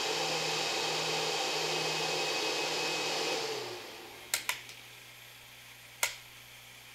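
An electric fan runs at speed with a steady hum, then slows about three and a half seconds in, dropping in pitch and getting much quieter. Three sharp clicks follow: two close together, then one more about a second and a half later.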